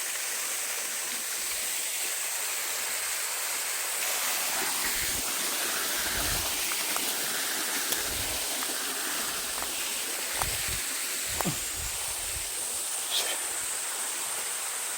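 A waterfall rushing steadily. A few soft thumps and short clicks come and go through the middle.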